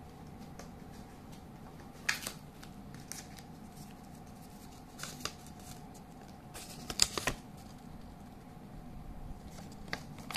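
Scattered rustles and clicks of a toy train's packaging and paper leaflet being handled, loudest in a cluster about seven seconds in, over a faint steady hum.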